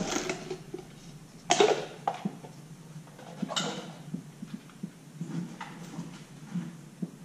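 Light metallic clicks of lug nuts being handled and threaded by hand onto the wheel studs, holding a brake rotor against the hub. Two short, sharp sounds stand out, about a second and a half and three and a half seconds in.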